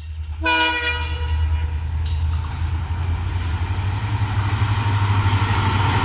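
WDP4D diesel locomotive passing with its engine running, giving one short horn blast about half a second in; the engine rumble and rolling noise grow steadily louder as it approaches.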